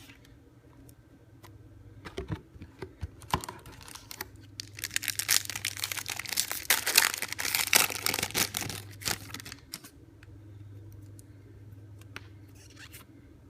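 Trading-card pack wrapper being torn open and crinkled, with cards clicking and snapping as they are handled. Scattered clicks at first, then a dense stretch of crinkling in the middle that dies away a few seconds before the end, leaving a low steady hum.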